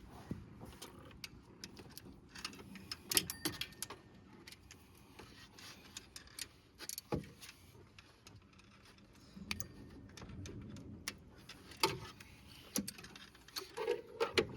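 Scattered metallic clinks and knocks of hand tools and engine parts being handled, irregular, with louder knocks about three seconds in, around seven and twelve seconds in, and a cluster near the end.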